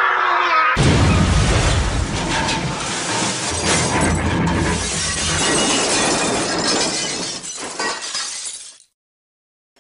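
Cartoon crash sound effect of a vehicle wrecking, with glass shattering and breaking. It starts suddenly about a second in, runs on for several seconds, and cuts off abruptly near the end.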